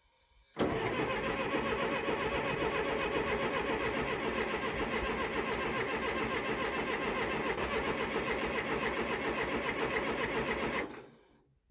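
Backhoe's diesel engine being cranked over on the starter, a rapid even mechanical clatter lasting about ten seconds that starts and stops abruptly.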